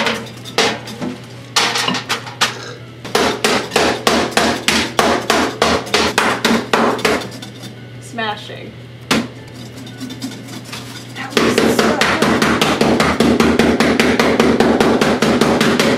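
Mallet pounding rock candy in a plastic zip bag on a metal baking tray, crushing it toward a powder. The blows come a few per second at first, ease off briefly, then turn faster and louder for the last few seconds.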